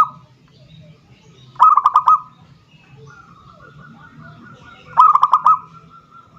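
Zebra dove (perkutut) cooing its rapid staccato song: two short bursts of quick notes about three seconds apart. This is a calling song meant to challenge a rival. A faint thin steady whistle runs under the second burst.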